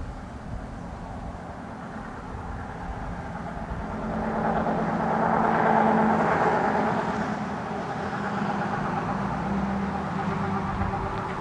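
A road vehicle passing, its noise swelling to a peak about six seconds in and then fading, over a steady low hum.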